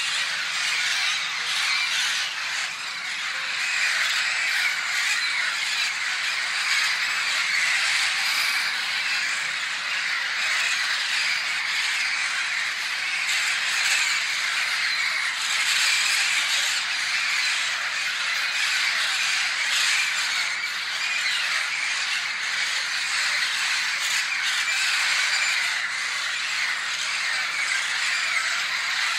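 A large flock of small birds perched on overhead power lines, calling all at once: a dense, continuous chatter of squeaks and squawks that holds steady throughout.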